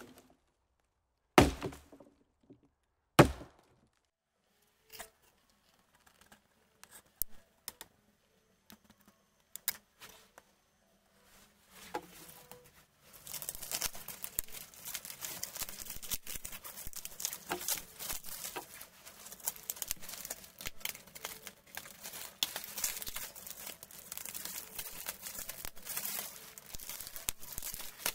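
Scissors cutting and tearing a black plastic mailing bag wrapped in clear tape, the plastic crinkling and crackling without a break through the second half. Earlier there are two loud knocks in the first few seconds and scattered faint clicks.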